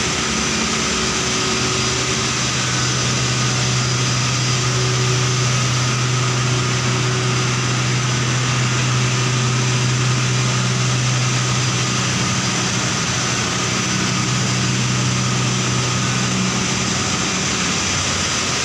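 A steady low machine hum over a constant hiss, with no change in rhythm, strongest through the middle.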